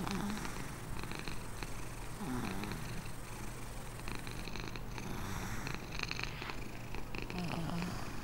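Long-haired domestic cat purring steadily, with a few short wavering low sounds at the start, about two seconds in and near the end.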